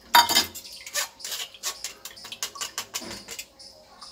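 Metal spoon scraping and clicking against a stainless steel mesh strainer as wet ground coriander-chilli paste is pressed through it: a string of short, irregular scrapes, the loudest right at the start.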